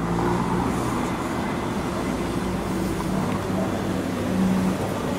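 Steady low engine hum over general street noise.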